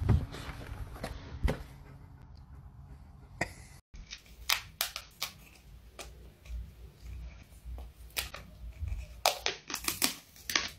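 A cat clawing at textured wallpaper: irregular sharp scratches and rips of paper, several in quick clusters, from about four seconds in. Before that, a few clicks and knocks as a hand works a brass doorknob.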